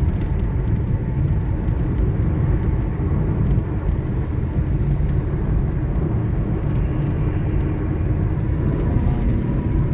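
Steady road noise heard inside the cabin of a car cruising on a concrete highway: tyre roar and low engine hum.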